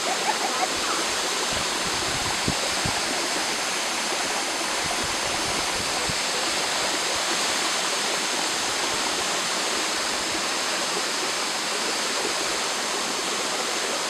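Steady rushing of a waterfall, with a few soft low knocks in the first three seconds.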